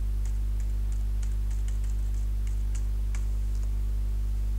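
Faint, irregular clicking of a computer mouse and keyboard over a steady low hum, the clicks stopping about three seconds in.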